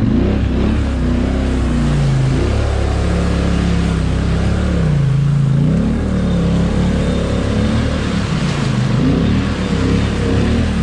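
ATV engine revving up and down repeatedly while the machine wades through a deep mud hole, with water splashing and churning around the tyres.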